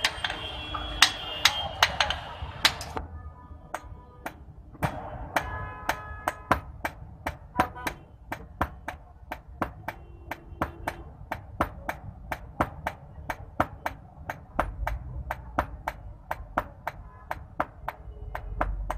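Hand hammer forging a red-hot iron daw blade on a small anvil: steady blows about three a second, each with a short metallic ring.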